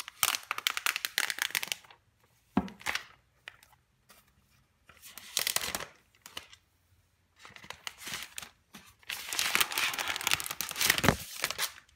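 Protective wrap being peeled off a laptop, crinkling and tearing in several separate pulls, the longest near the end.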